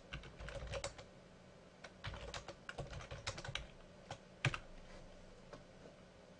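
Computer keyboard typing: quick runs of keystrokes, then a single louder keystroke about four and a half seconds in as the command is entered, after which the typing stops.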